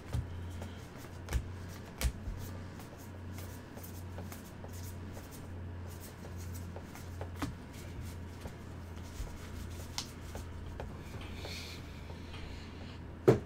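Baseball trading cards being flipped and slid through gloved hands: a run of small card clicks and rustles, with a sharper knock near the end.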